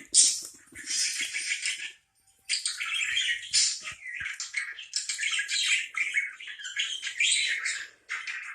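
Parakeet chattering and chirping in quick, high, busy runs, with a brief pause about two seconds in.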